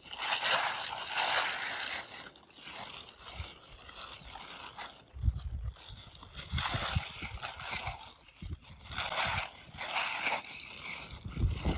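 Plastic tarp rustling and crackling in several bursts as it is shaken out and spread over snow, with gusts of wind rumbling on the microphone about five seconds in and near the end.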